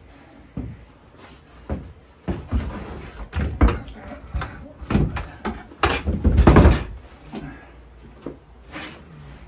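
Irregular wooden knocks and thumps as a wooden beehive box with frames is handled and set down on a plywood floor, the loudest clatter about six to seven seconds in.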